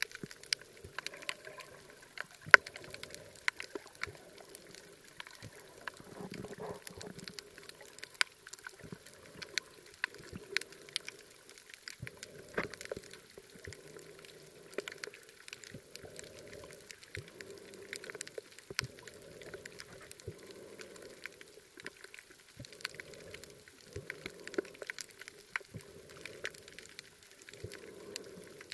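Underwater sound picked up by a camera swimming over a coral reef: scattered sharp clicks and crackles, with a muffled whooshing pulse of moving water about every second and a half.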